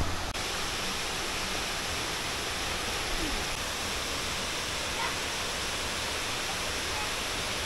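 Steady rushing of a waterfall and the shallow rocky stream below it.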